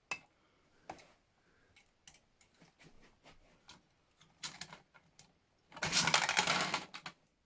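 Scattered light plastic clicks from a KerPlunk game, then, about six seconds in, a loud rattling clatter of marbles dropping and clicking together for about a second.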